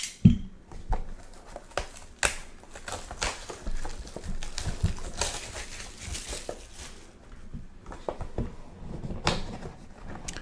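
A sealed cardboard trading-card box being unwrapped and opened by hand: plastic wrap crinkling and tearing, with scattered clicks and taps of the cardboard being handled.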